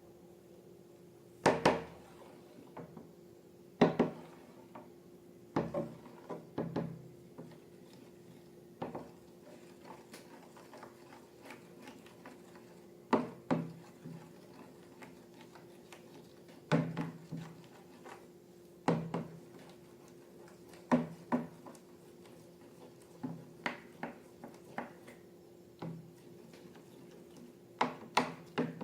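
Short, sharp taps and knocks of objects being handled on a hard surface, roughly one every two seconds and sometimes in quick pairs, over a faint steady hum.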